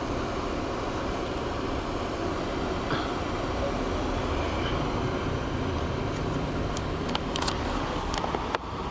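Steady engine and road rumble heard from inside a moving car in traffic, with a few sharp clicks near the end.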